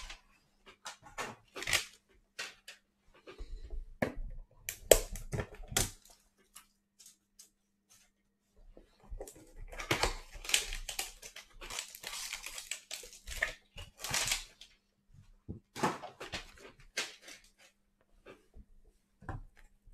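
Cellophane wrap being torn and crinkled off cardboard trading-card hanger boxes, with scattered crackles and clicks as the boxes and packs are handled. It pauses briefly about seven seconds in, then comes a longer, denser stretch of crinkling.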